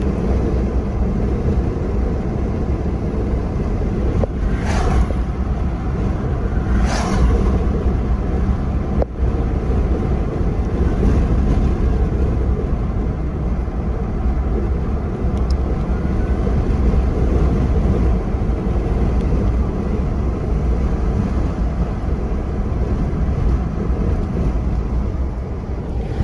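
Steady low rumble of a car driving, with two brief whooshes about five and seven seconds in.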